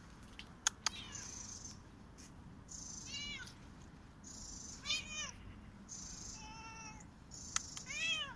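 Korat cat meowing: about five short meows, a second or two apart, each rising and then falling in pitch. A few sharp clicks come in between.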